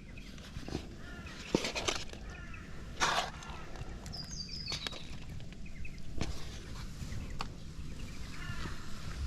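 Birds calling over a low outdoor background, with a few sharp clicks and knocks, the loudest about three seconds in, typical of utensils and bowls being handled while a meal is served up.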